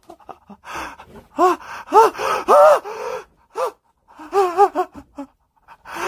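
A frightened person gasping and whimpering without words: a string of short, strained breathy cries that rise and fall in pitch, with a brief lull in the middle.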